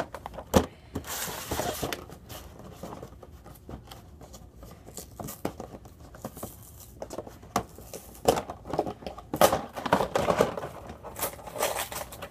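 Cardboard Hot Wheels Track Builder box being handled and opened on a wooden table: a sharp knock under a second in, then rustling and tearing of cardboard. Denser, louder rattling and clattering of the parts inside comes later, as the box is tipped.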